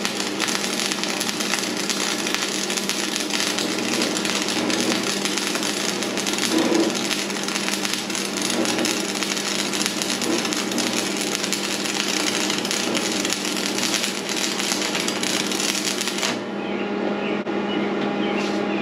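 Stick-welding arc crackling steadily as a Polaris AAA low-hydrogen rod is burned at 120 amps from a Lincoln tombstone welder through rusty, mill-scaled, painted and greased steel. The arc breaks off about 16 seconds in, leaving a steady hum.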